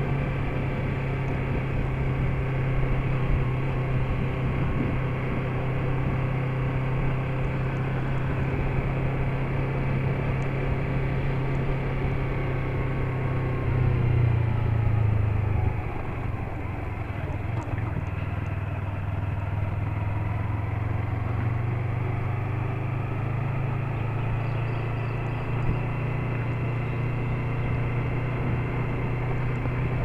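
Yamaha MT-03 motorcycle engine running at low road speed. About fourteen seconds in it gets louder for a second or two, then the note falls away as the bike slows, and it runs steadily again.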